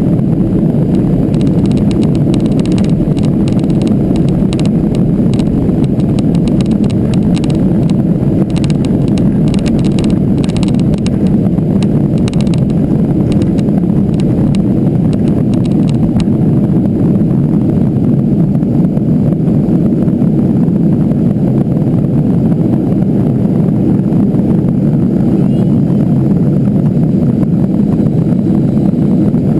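Cabin noise of a Boeing 737-200 at take-off thrust, its Pratt & Whitney JT8D engines giving a loud, steady, deep roar. Rattling knocks from the take-off roll on the runway run through roughly the first half and then stop as the jet lifts off, leaving the smooth roar of the climb.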